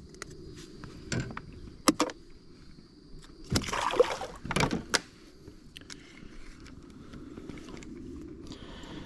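Knocks, clicks and a loud scuffing rustle about three and a half seconds in, from things being handled in a kayak, over a steady rush of river water.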